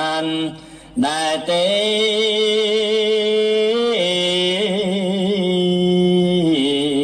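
A monk's solo voice chanting Khmer smot in long, drawn-out held notes with a wavering vibrato. There is a short break for breath about half a second in, before the next phrase starts.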